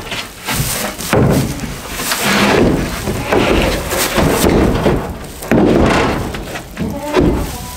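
Wooden top of a doghouse being handled and fitted back on: a run of scraping, knocking and thuds.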